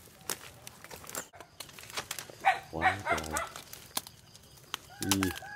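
Footsteps rustling through grass, then a few short animal calls: two close together near the middle and another near the end.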